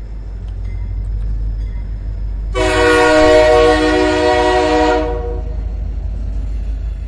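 Train horn sounding one blast of about two and a half seconds, several tones at once, over a steady low rumble from the train.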